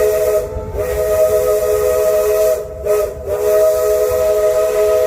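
Steam locomotive's chime whistle blowing a chord of several notes in long blasts, with two brief breaks.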